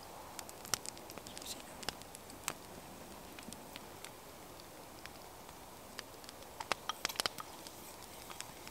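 Small wood fire crackling, with scattered sharp snaps and pops and a quick run of them near the end.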